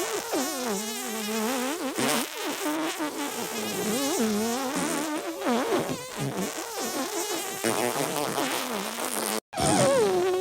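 Looped cartoonish sneeze and fart sound effects: wobbly, buzzy tones sliding up and down in pitch. A brief silent gap comes near the end, and then the loop starts over.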